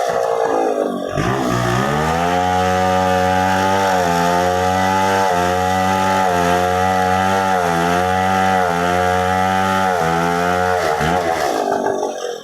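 Chainsaw running at high revs while cutting wood. The pitch dips about a second in and again near the end, and the sound drops away right at the close.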